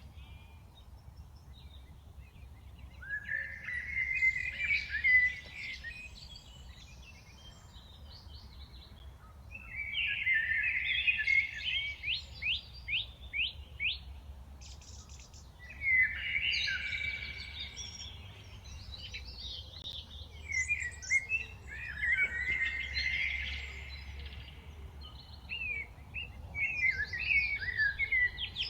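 Many songbirds chirping and singing together in overlapping bursts of quick high chirps and trills, with short lulls between the bursts. A faint steady low rumble runs underneath.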